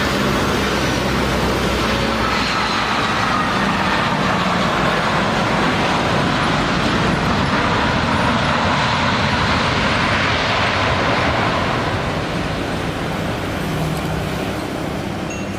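Jet airliner's engines passing close on the landing approach: a loud, steady roar with faint whines that slowly fall in pitch, easing off about twelve seconds in.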